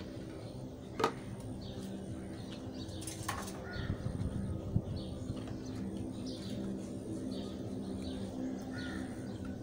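Metal dishes and pots clinking a few times as they are washed by hand, the sharpest knock about a second in. Small birds chirp repeatedly over a steady low hum.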